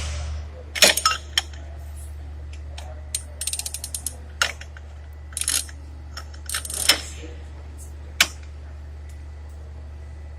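Ratcheting torque wrench being worked in short strokes on a wheel hub spindle nut as it is tightened toward 200 foot-pounds. It gives scattered ratchet clicks and metal knocks, with one quick run of rapid clicks about three seconds in, over a steady low hum.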